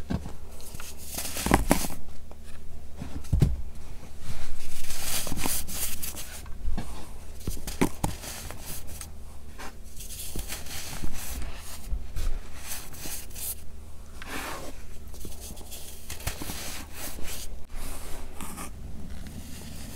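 Hands squeezing and digging through a pile of gritty baking soda and handling pressed baking soda blocks: a run of grainy crunching and scraping, with a couple of soft thumps in the first few seconds and a longer, louder scrape a few seconds in.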